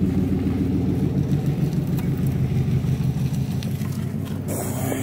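Ford 3.5 L V6 engine idling steadily, a continuous low hum heard from inside the car. A brief rustle comes near the end.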